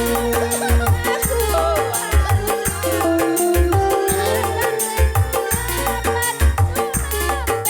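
Instrumental break in a live dangdut song played on an orgen tunggal (arranger keyboard): a melody line over a bouncing bass and drum beat, with a steady shaker.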